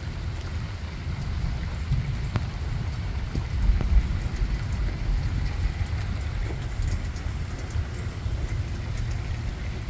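Rain falling steadily onto standing floodwater and soaked grass, with faint scattered drop ticks, under a low, uneven rumble of wind on the microphone.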